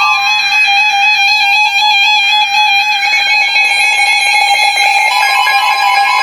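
Weather radio alert tones sounding: a loud, steady electronic alarm tone, with a second tone joining about three seconds in.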